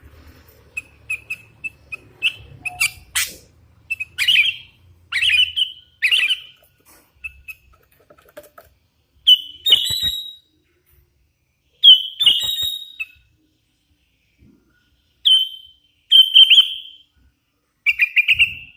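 Hand-fed young sooty-headed bulbul (kutilang) calling lively: bursts of short, sharp chirps, several in quick succession, with pauses of a second or two between bursts.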